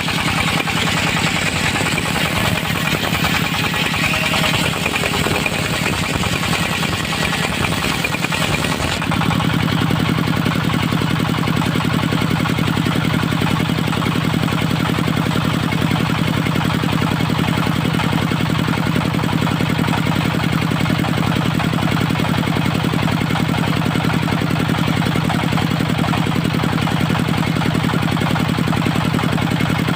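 Engine of a portable circular sawmill running steadily, with a higher hiss over it that stops suddenly about nine seconds in, leaving a steady low engine hum.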